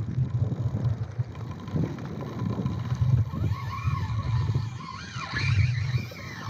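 Wind buffeting an action camera's microphone and water against a kayak hull, a steady low rumble. From about halfway through come several high whines that rise and fall.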